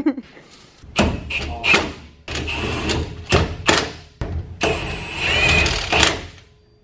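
Cordless impact wrench running lug nuts onto a car's rear wheel in three bursts of a second or two each, with a high motor whine.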